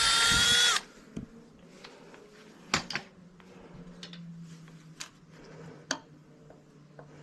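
A cordless power tool, working bolts off an engine, whirs for a moment and stops sharply just under a second in. After that come scattered light metallic clicks and clinks of tools and parts.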